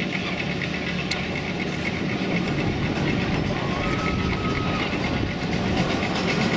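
Roller coaster train climbing its chain lift hill: a steady mechanical hum under a fast, even clicking as the chain and anti-rollback catches clack along the track.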